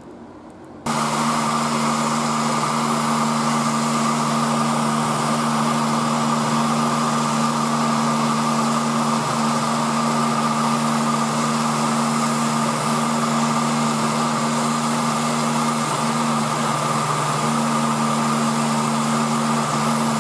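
Electric heat gun running steadily, its fan blowing hot air onto an aluminium slug mould to preheat it for casting. It starts abruptly about a second in, a steady hum under a rushing hiss.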